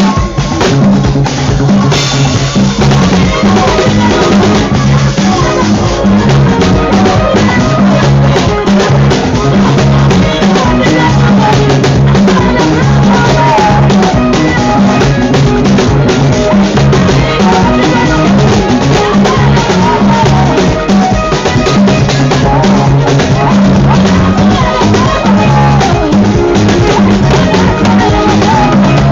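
Loud music with a steady drum-kit beat and a heavy repeating bass line.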